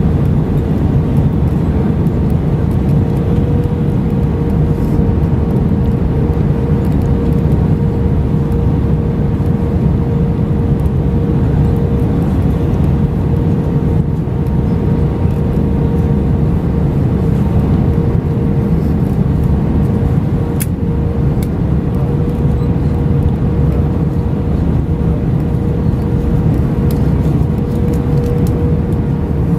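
Airbus A320 cabin noise heard from a passenger seat: the engines and airflow make a steady, deep rush, with a constant mid-pitched hum running through it.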